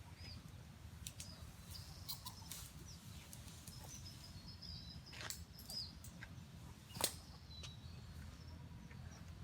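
Birds chirping faintly over a steady low rumble, with a few sharp clicks or knocks, the loudest about seven seconds in. No chainsaw is running.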